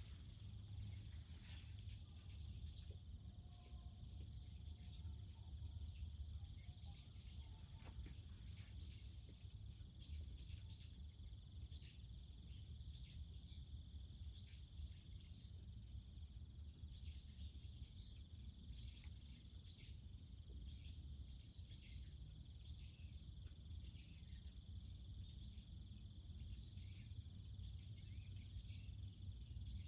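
Faint rural ambience: a steady high insect drone with many short, scattered high chirps over a low rumble.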